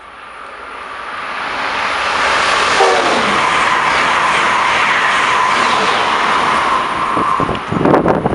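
Amtrak Acela high-speed trainset passing at speed: a rush of wheel and air noise builds over about two seconds, then holds loud and steady with a thin steady tone through it. Near the end the train's wake buffets the microphone in ragged gusts.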